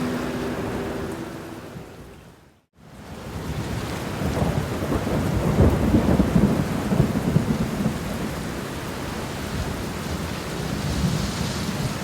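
Steady rain with thunder rumbling and crackling low, heaviest from about four to eight seconds in. The rain briefly fades to silence and back about two and a half seconds in.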